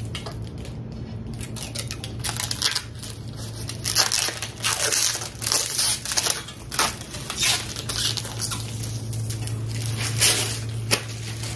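Clear plastic film crinkling as it is handled and crumpled off a glass cutting board, in a string of irregular rustles from about two seconds in until near the end, over a steady low hum.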